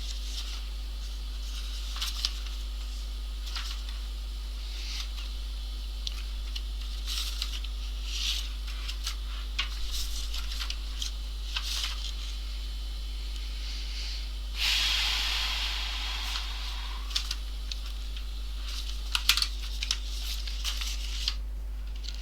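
Small scattered clicks and taps of multimeter probes and tools on a laptop circuit board, over a steady low hum and faint hiss. About fifteen seconds in comes a single hiss that fades over about two seconds.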